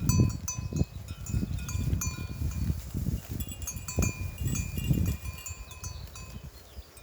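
Bells worn by a herd of goats clinking and clanking irregularly at several pitches as the animals move. Under the bells are louder low, irregular thuds and rustling, which fade near the end.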